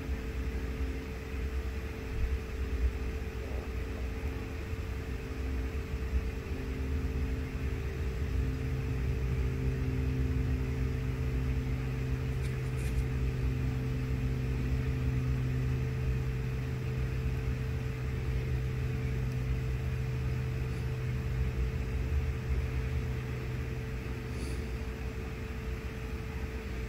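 A steady hum with a low rumble, like a running fan or appliance. A deeper hum comes in about eight seconds in.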